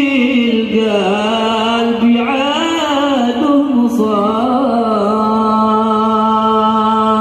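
A voice chanting sholawat in Arabic, with winding, ornamented lines that settle into a long held note about four seconds in.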